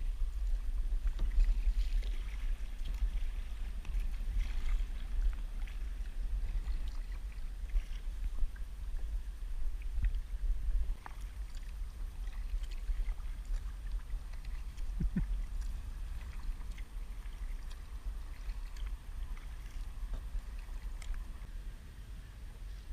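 A kayak moving on harbor water: paddle strokes, water sloshing against the hull and the occasional knock on the boat, over a steady low rumble.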